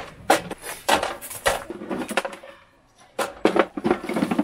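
Clatter of camping gear being handled: a folding metal camp stove on its wire legs set down on a wooden box, in a run of knocks and clicks, with a pause of about a second past the middle before the knocking starts again.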